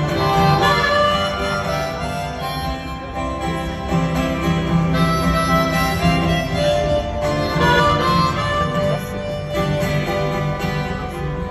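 Harmonica solo over a strummed acoustic guitar: an instrumental break in a live folk song, with long held notes.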